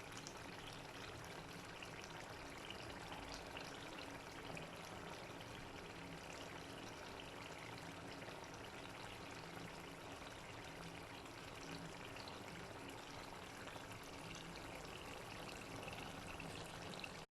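Pot boiling on the stove: a steady, faint bubbling hiss.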